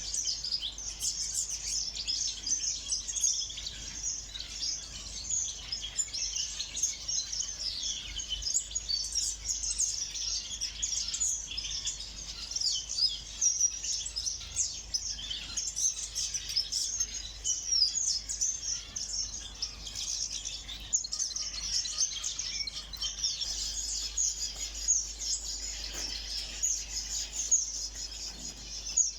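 A flock of small ornamental aviary birds chirping all together, a dense overlapping chatter of short high calls that goes on without a break.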